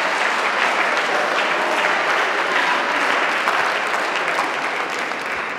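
Audience applauding, the clapping easing off slightly near the end.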